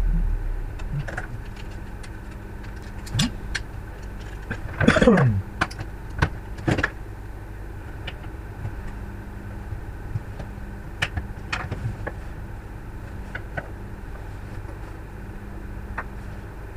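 Scattered clicks and knocks of a car's plastic climate-control unit being handled and pried apart, with a louder drawn-out sound falling in pitch about five seconds in, over a steady low hum.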